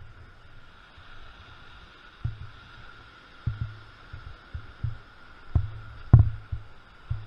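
Hurricane wind gusting against the microphone: a low rumble of buffeting with irregular thumps, the strongest about six seconds in.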